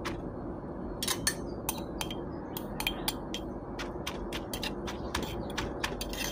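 Granite mortar and stone pestle pounding shredded green mango, with a metal spoon scraping the paste back down, giving irregular sharp clicks and knocks about three times a second as stone and spoon strike the mortar.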